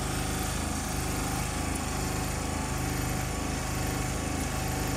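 An engine idling steadily, with an even, fast pulse that does not change.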